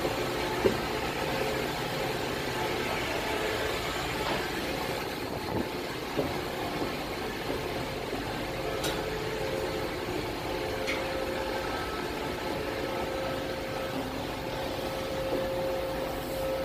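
Steady drone of a cruise ship's engine-room machinery, with a constant hum and a few small clicks and knocks.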